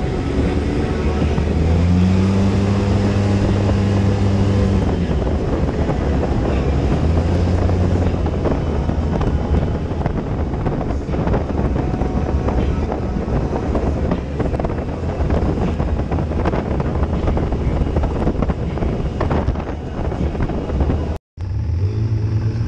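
Side-by-side UTV engine running at speed while driving, with heavy wind rush on the microphone. The sound drops out briefly near the end.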